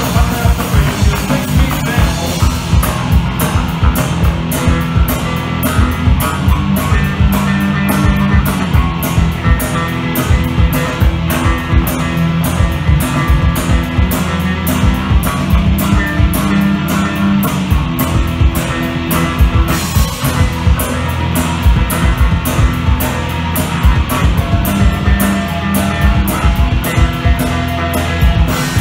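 Three-piece punk rock band playing live: electric guitar, electric bass and drum kit. A fast, even cymbal beat comes in about three seconds in and keeps going.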